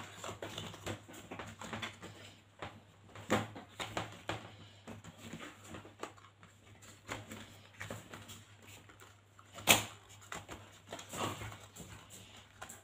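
Cardboard and wooden craft sticks being handled on a tabletop: scattered light taps, scrapes and rustles, with one sharp click a little before ten seconds in.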